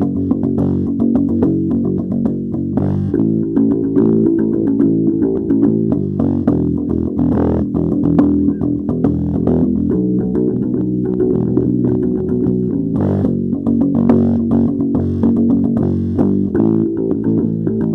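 Music led by bass guitar and guitar, a steady run of plucked notes sitting low in pitch.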